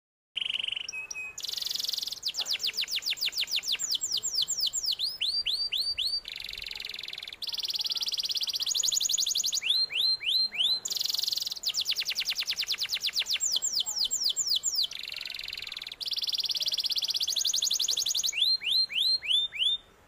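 Domestic canary singing a long, unbroken song of very fast trills, each phrase a rapid run of repeated notes, broken up by short groups of four or five quick downward-sweeping whistles.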